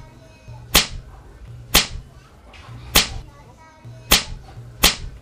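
A string of sharp slap hits on a face, five in about five seconds and roughly one a second, each with a whip-like crack.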